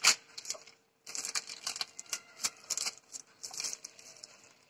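Thin polythene sheet rustling and crinkling in many short, irregular crackles as it is folded over dough balls and smoothed flat by hand. There is a sharp click right at the start.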